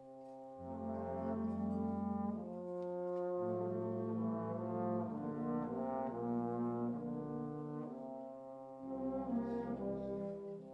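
Bass trombone and wind-band brass playing slow, sustained chords over a low bass line, entering about half a second in after a brief hush, with a louder swell near the end.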